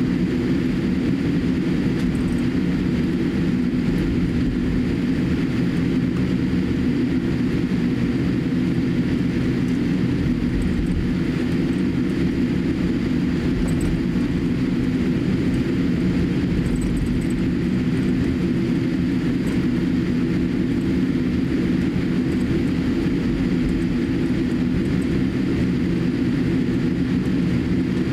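Steady low hum and rumble inside the cabin of a Boeing 787-8 taxiing: its GEnx turbofan engines running at taxi power, with the wheels rolling over the taxiway.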